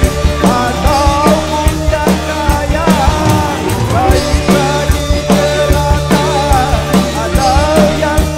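Live band playing a dangdut song, with a drum kit keeping a steady beat, keyboard and a male voice singing the melody.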